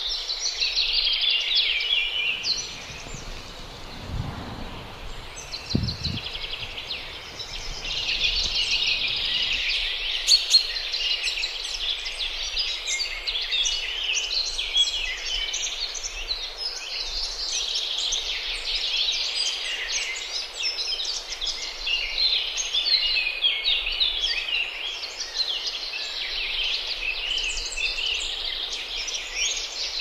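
Many small birds chirping and twittering at once, a dense, continuous chorus of high calls. A couple of low thuds about four to six seconds in.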